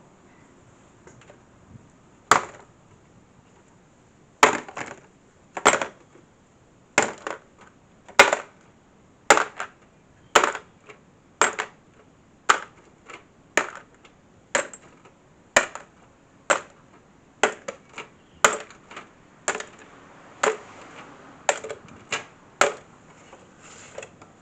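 About twenty short, sharp strikes on a rusty metal tool box, roughly one a second, each with a brief ringing tail. This is hand work to clear the rust.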